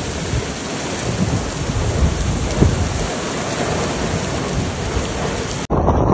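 Heavy rain pouring in a tornado thunderstorm, a steady loud hiss. Near the end it cuts to a louder, lower rush of wind noise.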